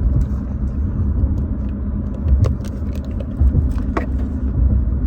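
Steady low road rumble of a moving car, heard from inside the cabin, with a few small clicks and rustles over it.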